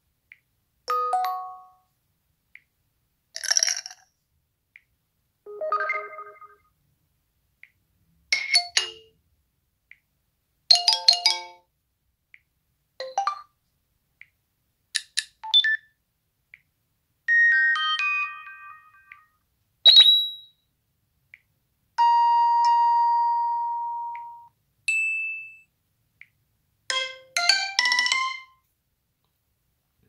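A run of about a dozen short LG G6 notification tones played one after another through the phone's speaker, each a brief chime or jingle with a pause before the next, and faint ticks in between. One of them is a single held tone that fades over about two seconds.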